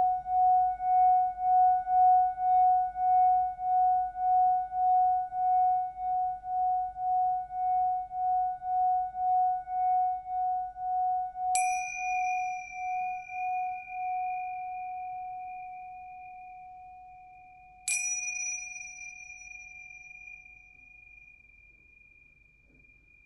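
Singing bowl ringing with a steady, pulsing wobble of about one and a half beats a second, fading slowly away. A higher-pitched bell-like tone is struck twice, about six seconds apart, and each strike rings on and decays.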